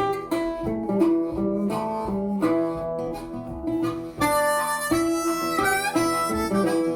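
Background music: acoustic guitar playing, joined by a harmonica about four seconds in.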